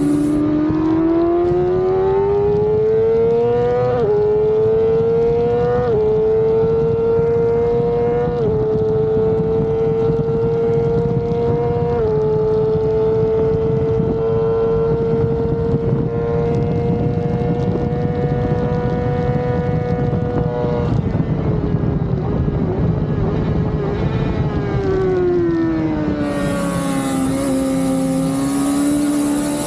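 Suzuki GSX-R600 inline-four engine at full throttle: the revs climb through four quick upshifts in the first dozen seconds, then hold a high, steady pitch for a long stretch. About 21 seconds in the throttle closes and the revs fall through several downshifts, then climb again near the end. A steady rush of wind runs underneath.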